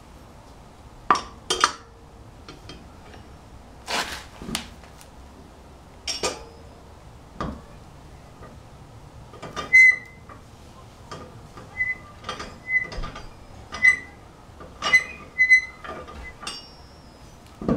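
Irregular metallic clinks and taps of chrome lug nuts being threaded onto wheel studs and tightened with a wrench, some strikes leaving a brief ringing note.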